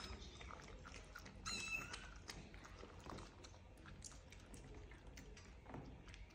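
A puppy and a tabby cat lapping liquid from a shallow bowl: faint, quick wet licking clicks. A short high meow, likely a kitten's, comes about one and a half seconds in.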